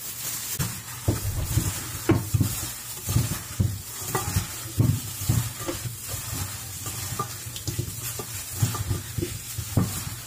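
Raw chicken drumsticks in seasoning and jerk sauce being squeezed and turned by a plastic-covered hand in a stainless steel bowl. Wet squelching with irregular soft knocks, several a second.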